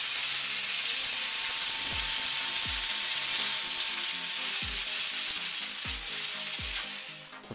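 Chief Steamer 100 commercial 100 psi steam cleaner's wand blasting a steady hiss of steam as it strips old latex spray paint off plastic. The hiss cuts off shortly before the end.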